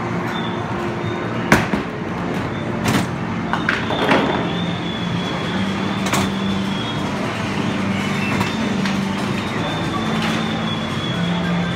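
Mini-bowling lane: steady background din with faint held tones, and a few sharp knocks about one and a half, three and four seconds in as the ball strikes the pins and balls clunk through the ball return.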